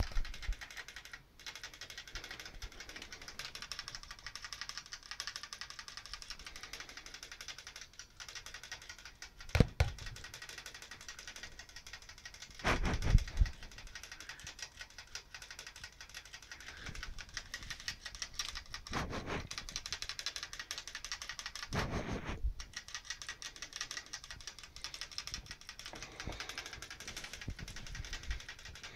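Pet rats licking at a cage water bottle's metal sipper tube: a fast, continuous clicking like typing. Four louder knocks stand out, about a third of the way in, twice in the middle, and about three quarters of the way through.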